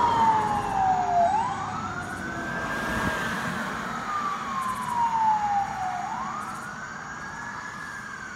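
Emergency vehicle siren sounding a slow wail: the tone falls gradually, sweeps quickly back up and falls again, about once every five seconds. It fades as the vehicles drive away.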